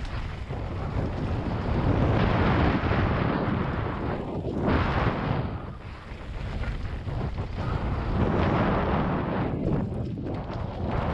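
Wind rushing over a helmet camera's microphone at downhill riding speed, mixed with mountain bike tyres rolling over loose dirt and gravel. The rush swells and eases as the rider speeds up and slows, dipping about halfway through and again near the end.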